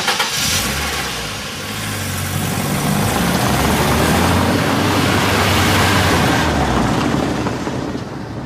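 A motor vehicle's engine running and pulling away, with a clunk at the start. The engine builds up over the first few seconds and fades out near the end.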